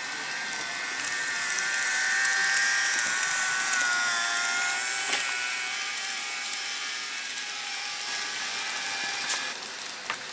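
N gauge model train running on the layout track: the small electric motor's thin whine over the hiss of the wheels on the rails, with a few light clicks. It swells as the train passes close, about two to four seconds in.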